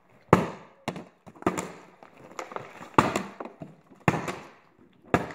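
Partly filled plastic water bottles being flipped and hitting the rubber floor: a series of sharp knocks and thuds, about six in five seconds, irregularly spaced.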